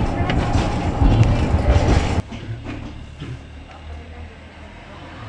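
Tram running on metre-gauge track: loud rumbling wheel-and-rail noise with sharp clicks. About two seconds in it cuts off abruptly to a much quieter low, steady hum.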